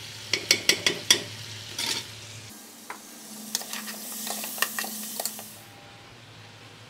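A metal spoon knocking several times against a pressure cooker pot as ginger and garlic paste goes in, then lamb ribs sizzling in ghee while the spoon stirs and scrapes through them. The sizzling stops abruptly near the end.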